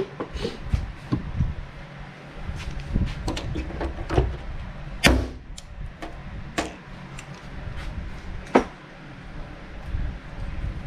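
Paintless dent repair glue pulling: a string of sharp clicks and snaps from a hand-squeezed mini lifter pulling a glue tab on a car roof panel. The loudest snap comes about halfway through, with another sharp one a few seconds later.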